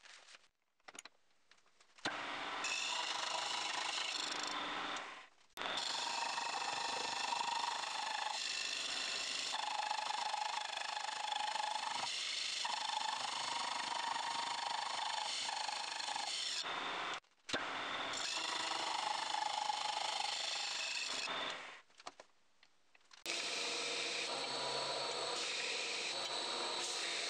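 Slitting saw on a milling machine cutting a slot into a metal part clamped in a vise: a steady cutting whir heard in several takes, broken by short silent edits. For the last few seconds a belt grinder runs with the part held against its belt.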